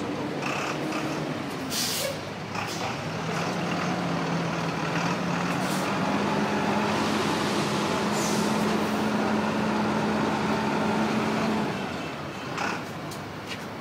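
A heavy police truck's engine running close by, its pitch creeping slowly upward, then fading away about twelve seconds in. A short hiss sounds about two seconds in.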